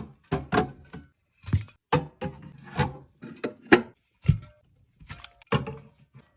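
Aluminium soda cans being set into a mini fridge: a quick, irregular run of knocks and clinks, some with a short ring.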